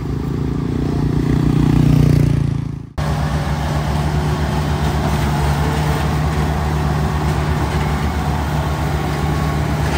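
Kubota DC-105X combine harvester's diesel engine running at a steady pitch. It grows louder over the first two seconds and then fades. About three seconds in the sound cuts abruptly, and the engine carries on steadily with more rumble mixed in.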